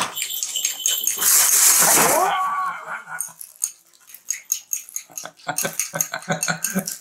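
Crinkly rustle of a fabric cat play tunnel as a cat moves inside it, loudest for about a second near the start, followed by a run of light taps and scratches.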